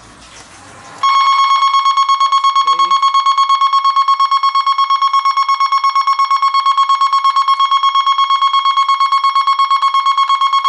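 Regal Safe RS50 intruder alarm panel's siren sounding, set off by pressing the reboot button on entering engineer programming: a loud, steady tone that starts suddenly about a second in and pulses rapidly and evenly.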